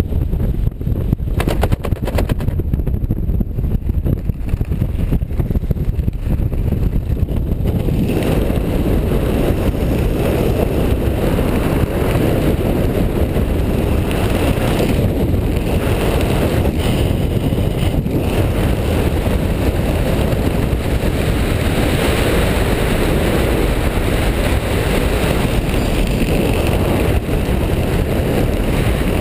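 Wind buffeting a helmet camera's microphone under an open parachute canopy: a steady low rumble that turns fuller and hissier about eight seconds in.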